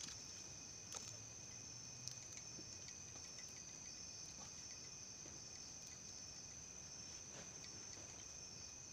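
Night insects chirring in a steady, faint, high-pitched chorus, with a couple of faint clicks about one and two seconds in.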